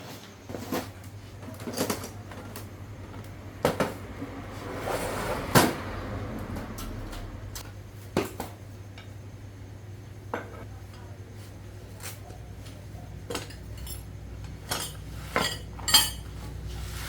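Scattered metallic clinks and knocks of hand tools and metal machine parts being handled, at irregular intervals over a low steady hum.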